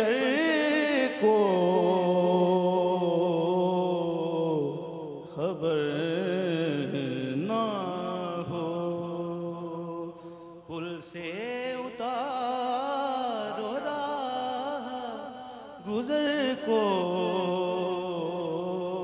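A man singing a naat, an Urdu devotional poem, solo and unaccompanied into a microphone. He sings in long held, ornamented phrases of about four to five seconds each, with short breaks for breath between them.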